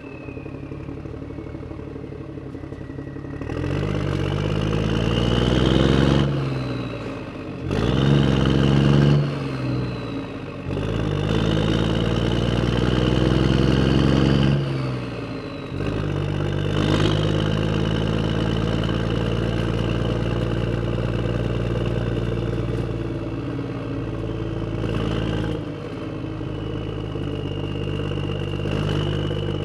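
Motor vehicle engine pulling away and accelerating. The revs climb three times, falling back between climbs as at gear changes, then hold steady from about halfway through.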